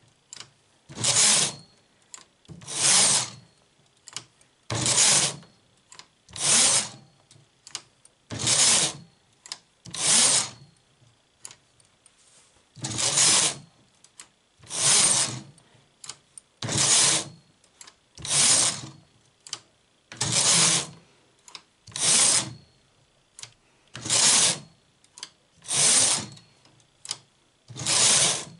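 Domestic knitting machine carriage pushed back and forth across the metal needle bed, a rasping swoosh on each pass, about fifteen passes roughly every two seconds. Faint clicks between passes from needles being pulled forward.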